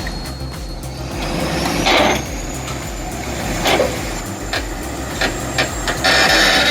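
Heavy diesel earthmoving machinery running under load with a steady low rumble and a thin high whine that climbs in pitch over the first couple of seconds. Short bursts of hissing come about two seconds in, near four seconds, and again near the end.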